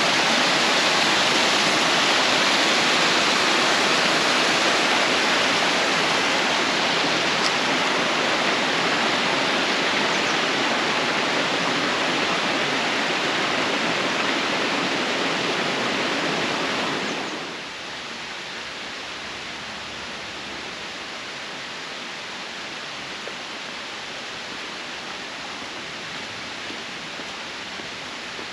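Steady rushing of flowing water that drops to a quieter, steady rush about two-thirds of the way through.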